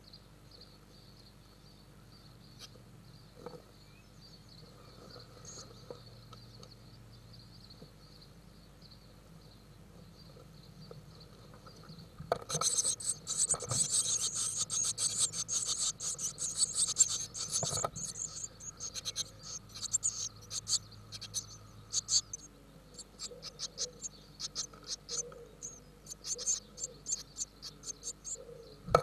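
Blue tit nestlings begging inside the nest box: a sudden loud chorus of raspy, high-pitched calls starts about twelve seconds in as a parent arrives, then thins to scattered short calls in the second half. Before the chorus there is only a faint steady hum.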